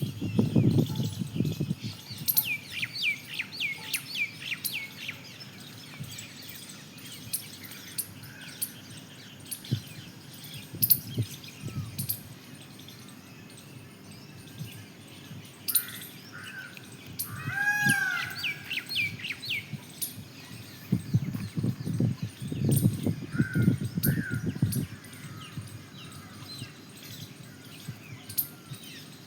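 Birds chirping outdoors in quick runs of short high chirps, with one arched call about 18 seconds in. Low rumbles come near the start and again around 21 to 25 seconds in.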